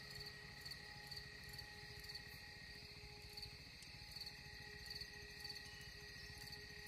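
Insects chirping in the roadside vegetation, short high chirps repeating one or two times a second over a steady faint drone and a low rumble.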